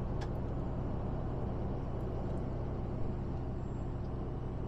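Steady drone of a Mercedes-Benz Actros lorry cruising at motorway speed, heard from inside the cab: low engine hum mixed with tyre and road noise.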